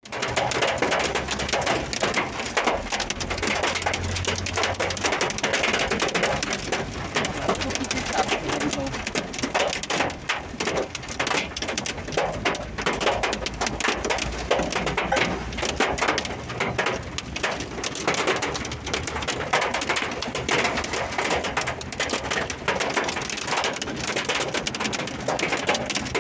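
Heavy rain and hail drumming on the roof and windscreen of a Ford Ranger pickup, heard from inside the cab: a dense, unbroken patter of countless small hits.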